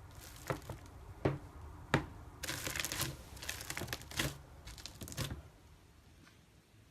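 Slime being squished and stretched by hand, giving sharp pops and clicks. A few single snaps come in the first two seconds, then a dense run of crackling from about two and a half to five seconds, which then dies away.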